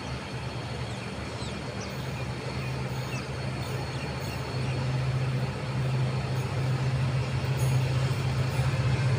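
Diesel locomotive approaching, its engine a steady low drone that grows gradually louder.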